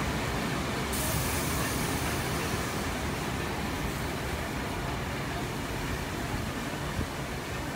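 A moving passenger train heard from a carriage window: a steady rumble of wheels on rails with wind rushing past. A higher hiss comes in about a second in.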